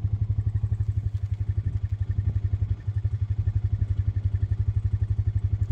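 A vehicle engine running steadily with a fast, regular low throb, dipping briefly about three seconds in.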